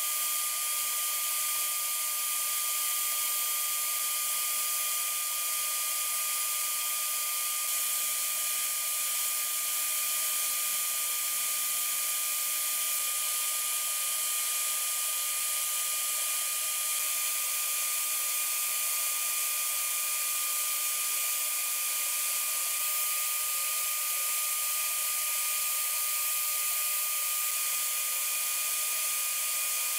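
Abrasive blasting in a sandblast cabinet: a steady hiss of compressed air and grit from the blast nozzle, with a thin steady whistle running under it.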